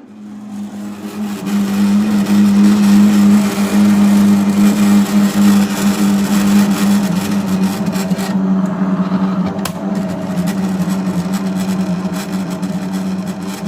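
LG front-load washing machine's drain pump motor running with a loud, steady hum that sounds like a generator, building over the first second or two and then holding. The pump motor is faulty, which is what makes it this loud.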